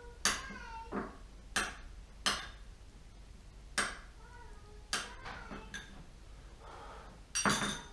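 Irregular sharp knocks and clinks of kitchen utensils on a wooden cutting board and pot, about seven in all, with a denser clatter near the end. Between them come a few short high cries that fall in pitch, the meows of a cat.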